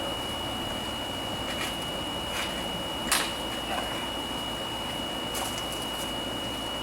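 A few light clicks and taps, the sharpest about three seconds in, over steady background noise with a constant high-pitched whine.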